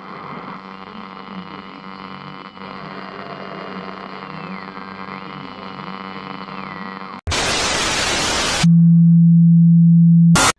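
An eerie electronic drone with a high tone that glides up and down. It cuts off suddenly about seven seconds in into a loud burst of white-noise static. That gives way to a loud steady low hum, ended by a short static blip.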